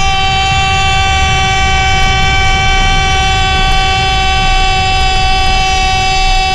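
A long horn blast held at one unwavering pitch throughout, rich in overtones, over a low background rumble.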